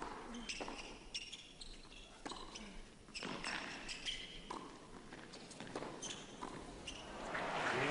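Tennis rally on an indoor hard court: a string of sharp knocks from racquet strikes and ball bounces, roughly one every half second to a second. Crowd noise swells near the end.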